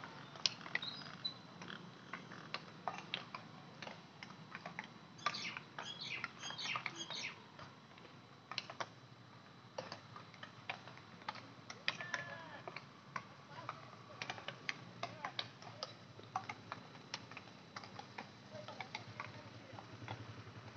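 Irregular sharp clacks of field hockey sticks striking balls during a team practice, heard from across the pitch, over a low steady background hum.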